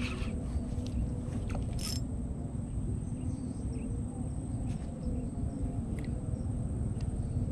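Steady low rumbling background noise with a faint, even drone underneath and a few light clicks.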